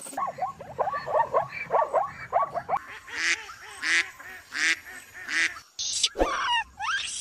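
A string of animal calls: quick chirping, then four harsh honks about two-thirds of a second apart from waterbirds, then a few rising squeals near the end.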